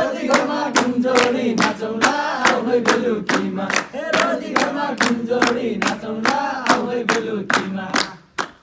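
Group of young men singing a Nepali dohori refrain together, with hand claps keeping a steady beat of about three a second. The singing and clapping stop near the end.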